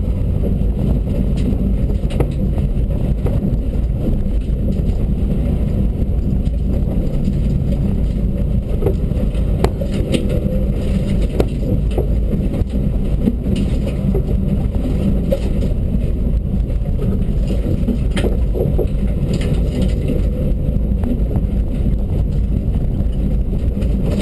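Dacia Duster rally car driven at speed, heard from inside the stripped, caged cabin: a steady, loud drone of engine and road noise, with scattered knocks and rattles throughout.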